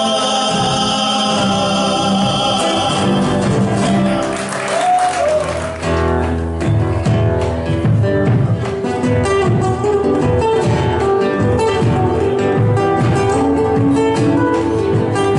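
Folk music: a sung song ends on long held voices, and about six seconds in a new piece starts with strummed guitar and bass in a steady rhythm.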